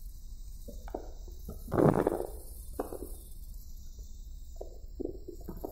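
Low steady rumble of a car driving, heard from inside the car, with several short muffled knocks and noises, the loudest about two seconds in.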